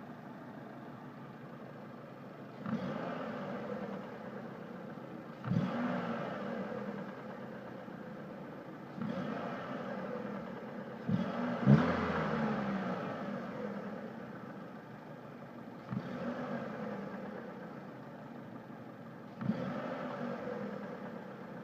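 Mitsubishi Lancer IX engine idling and blipped about six times, each rev rising quickly and then sinking back to idle. The owner hears a knock from the engine as the throttle is released; it does not show every time.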